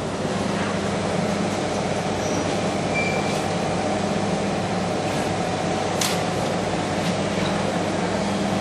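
Steady mechanical hum and rumble of the running evaporator rig's machinery, with a single sharp click about six seconds in.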